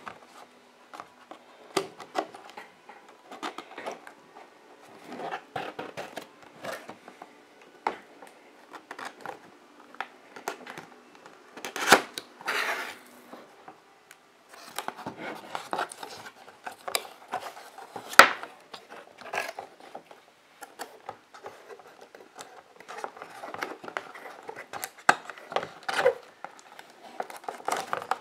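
Cardboard figure packaging being handled and opened: card scraping and rubbing against card as flaps are worked and an inner box slides, broken by irregular sharp clicks and taps, the loudest about 12 and 18 seconds in.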